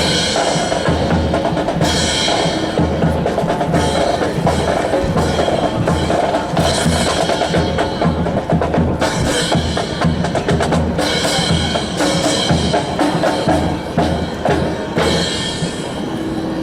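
Drum-heavy music with a steady bass-drum beat and sharp percussive clicks, accompanying a rifle drill display.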